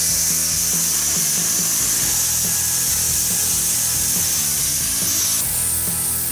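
Lincoln Weld-Pak 155 wire-feed welder laying a continuous bead on thin, rusted mower-deck steel: the arc runs with a steady hiss, its tone shifting slightly about five seconds in.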